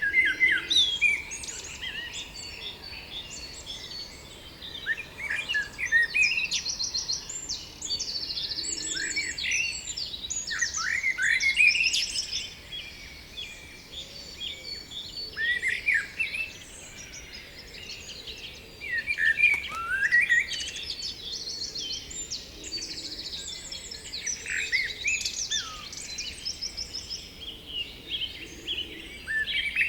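Several songbirds singing at once: a steady mix of chirps, fast trills and short falling whistles, with louder phrases coming and going every few seconds.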